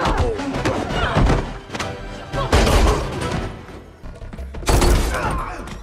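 Action film soundtrack: tense score under a hand-to-hand fight, with three heavy thuds and booms and strained cries.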